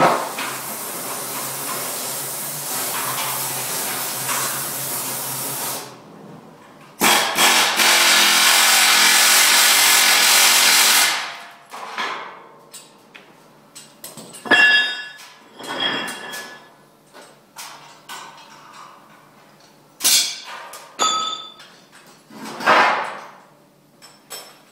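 A power tool runs in two long stretches, the second louder, then metal clanks and rings several times as parts are knocked about.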